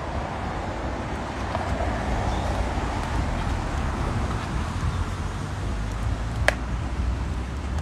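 Steady road traffic and wind noise, with a single sharp click about six and a half seconds in.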